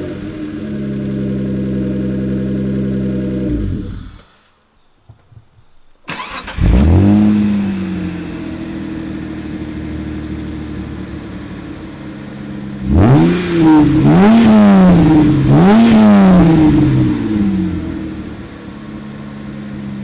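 Mitsubishi FTO 2.0-litre 6A12 V6 through a stainless aftermarket exhaust, idling steadily before it cuts off suddenly. A couple of seconds later an FTO V6 is blipped once and settles to idle, then is revved three times in quick succession and settles back to idle.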